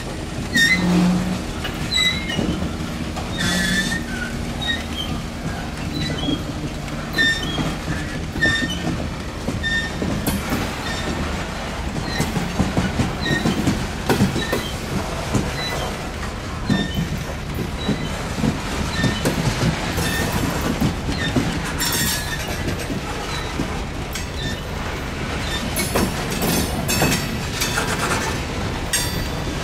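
Freight train's open hopper cars rolling past on steel wheels, with steady rumble and clicking over the rail joints. Short high wheel squeals chirp again and again throughout.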